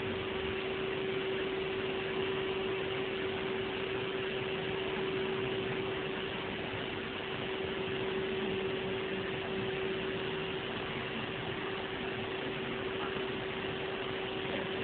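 Henry canister vacuum cleaner running steadily: an even rushing hiss with one constant tone held throughout.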